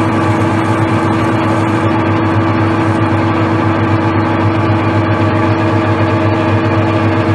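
Metal lathe running steadily while its cutting tool faces off a wheel nut, skimming the wrongly tapered seat flat so a washer will sit on it. A steady motor hum with no breaks.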